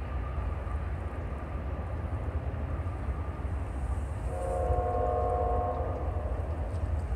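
Approaching BNSF freight train's diesel locomotives with a steady low rumble, and one blast of the lead locomotive's multi-chime air horn about four seconds in, lasting about a second and a half.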